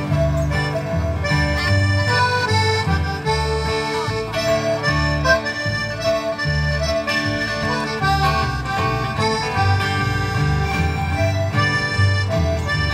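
Live acoustic country band playing an instrumental break: a lead melody instrument plays held, sustained notes over strummed acoustic guitars and a steady bass line.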